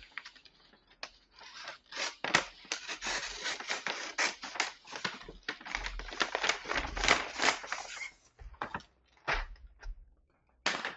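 Cardboard keycap box being torn open: a dense run of scratchy ripping and crinkling of tape and packaging for several seconds, then a few scattered handling noises near the end.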